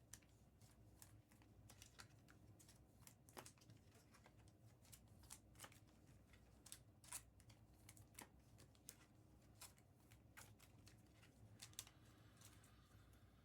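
Faint, irregular clicks and light taps of trading cards being handled, slid and stacked, over a low steady room hum.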